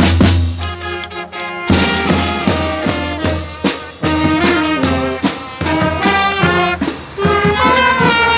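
Upbeat music with brass horns over a steady drum beat; the music changes abruptly a little under two seconds in.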